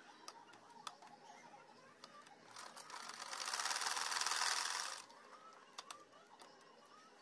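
Treadle sewing machine stitching a quilt seam: a run of rapid stitching that speeds up about two and a half seconds in, runs at full speed for about a second and a half, and stops abruptly about five seconds in. A few faint clicks come before and after.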